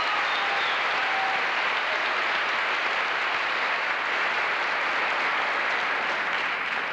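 Audience applauding steadily in a large auditorium.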